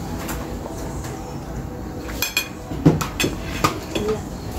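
A few short metal clinks and small knocks from a fork and eating, over a steady low background rumble, as a hot tamale is bitten into and chewed.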